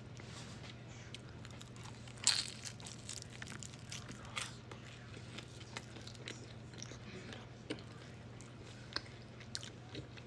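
Close-miked mukbang eating of fried Chinese takeout food: a loud crunchy bite about two seconds in, another around four seconds, then chewing with many small wet clicks.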